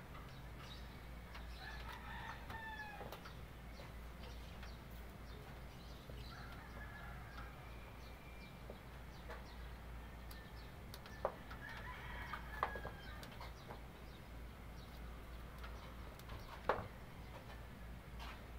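A rooster crowing several times, with three sharp knocks in the second half from cats scuffling on a corrugated metal roof.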